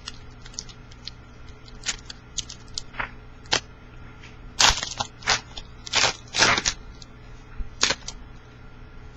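A trading-card pack wrapper crinkling and tearing as a pack of football cards is opened and handled. It comes as irregular sharp crackles and rustles, thickest and loudest a little past the middle.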